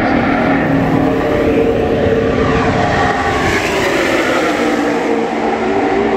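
NASCAR Cup Series stock cars' V8 engines running at speed as a pack passes by. Their engine notes sweep in pitch as they go past, thickest around the middle.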